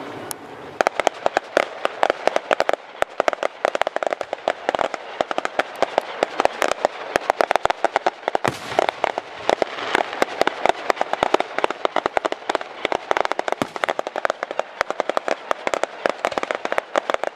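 Aerial fireworks going off: a dense, rapid run of sharp crackling pops, several a second, starting about a second in, over a steady rushing hiss.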